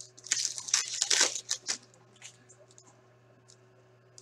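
Trading cards being handled: a run of rustling and scraping as a card is laid down and the next one slid off the stack, settling into a few faint light ticks after about two seconds.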